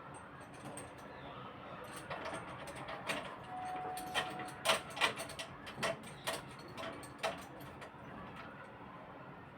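Tube cutter being turned around a copper refrigerant pipe to cut it square: a run of irregular sharp metal clicks and ticks, with a brief squeak about four seconds in.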